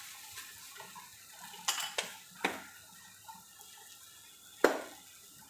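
A kitchen utensil clinking against an iron pan with a besan pancake cooking on it: a few sharp taps, the loudest near the end.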